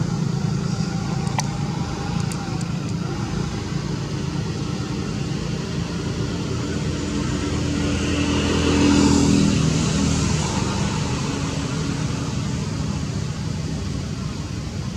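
Steady low engine rumble of road traffic, swelling to its loudest about nine seconds in and easing off again.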